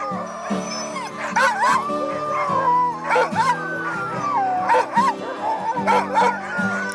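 A pack of harnessed sled dogs barking, yipping and howling, the excited racket of dogs on a gangline waiting to run. Background music with held chords plays underneath.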